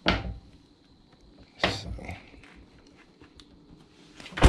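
Three sharp knocks or clunks with quiet between them. The last, near the end, is the loudest, a heavy thump.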